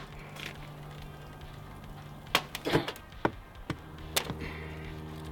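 A hammer knocking about six times at uneven intervals, with steady background music underneath.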